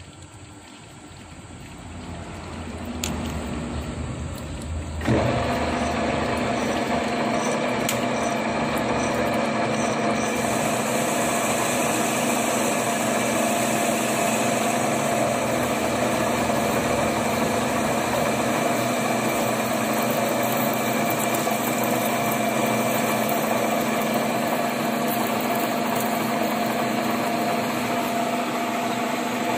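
Metal lathe running as its tool turns down a steel ring for a motorcycle magneto housing's bearing seat. A low rumble builds over the first few seconds, then about five seconds in the machine steps up to a loud, steady running sound with a held whine.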